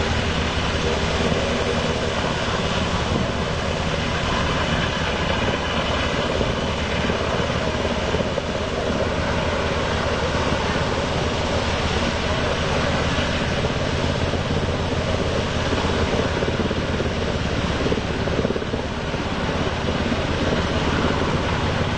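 An engine droning steadily at an even level, with a low hum running under a broad noise.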